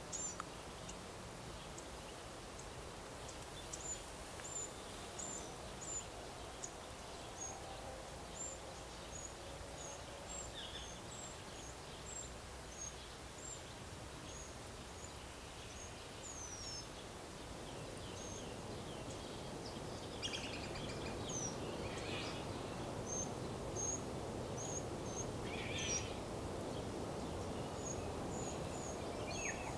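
Small birds giving short, high chirps, one or two a second, over a steady low background hum that grows louder about halfway through.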